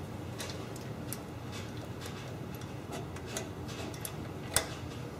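Scattered light clicks and taps of hands and a tool fitting a choke cable under a lawn tractor engine, with one sharper click about four and a half seconds in, over a faint low hum.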